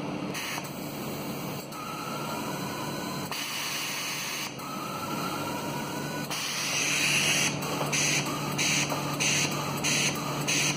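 Compressed air hissing from a Siemens SIPART PS2 pneumatic positioner and control valve actuator during auto-calibration (Run 4): a few longer hisses, then short bursts of air just under two a second near the end as the positioner steps the valve.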